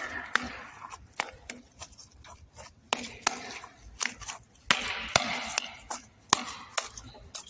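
Corroded cartridge from magnet fishing being knocked and scraped against concrete to work the bullet loose: a string of irregular sharp knocks, about two or three a second, with rasping scrapes near the start and again about halfway through.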